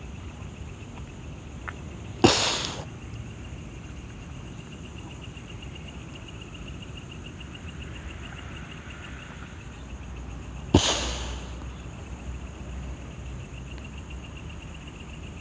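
Steady, evenly pulsing trill of night insects, broken twice, about eight seconds apart, by a sharp, hissing burst that dies away within half a second.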